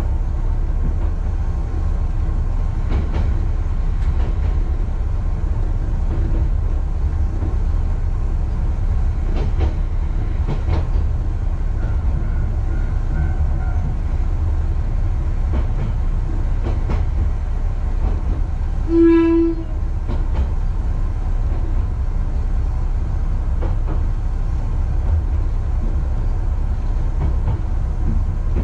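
Kishu Railway diesel railcar running slowly on jointed single track, its engine rumbling steadily with wheel clicks over the rail joints. About two-thirds of the way in, the railcar gives one short horn blast.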